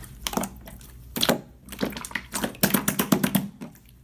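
Slime being squeezed and pressed by hand, giving a run of sticky clicks and crackling pops, densest around three seconds in.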